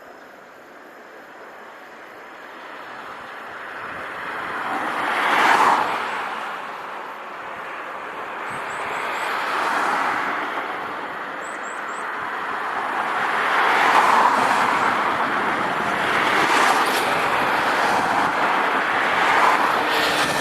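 Vehicles passing by one after another, each a rush of noise that swells and fades within a few seconds; five pass in turn.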